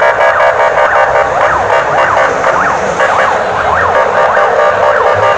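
Electronic vehicle siren sounding continuously in fast rising-and-falling sweeps, about two a second, over a bed of steady tones.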